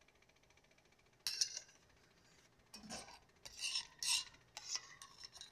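A spoon scraping and stirring thick avocado ice-cream mixture in a stainless steel bowl: one short scrape about a second in, then a run of quick scrapes through the second half.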